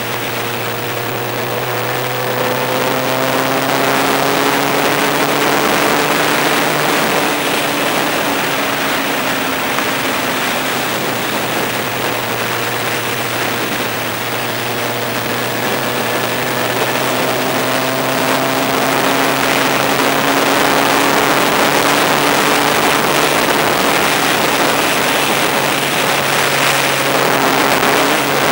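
Motorcycle engine running at road speed under heavy wind rush on the microphone; the engine note rises slowly a couple of times as the bike pulls harder.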